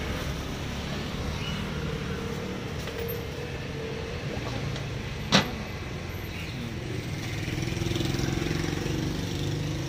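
Street traffic of motor scooters and cars running steadily, with an engine growing a little louder near the end. A single sharp click about halfway through.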